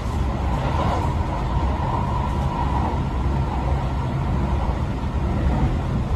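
Tokyo Metro 18000 series electric train running at speed, heard from inside the passenger car: a steady rumble of wheels on rail and running gear.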